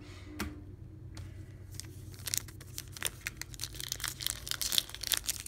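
A trading-card pack's plastic wrapper being torn and peeled open by hand, with a quick run of crinkling crackles from about two seconds in.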